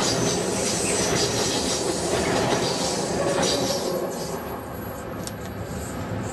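A freight train of sleeper wagons rolling past, its wheels clattering over the rail joints with some squeal. The sound falls off about four seconds in as it moves away.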